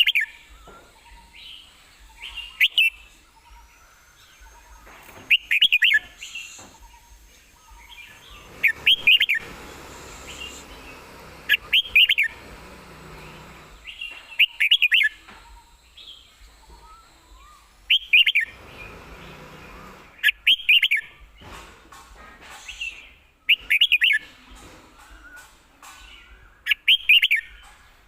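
Red-whiskered bulbul singing: short, loud, warbled song phrases repeated every two to three seconds, about ten in all.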